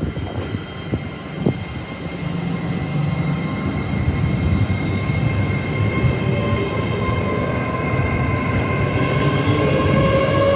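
A train running through the station, its rumble getting gradually louder, with a whine that rises in pitch over the last few seconds.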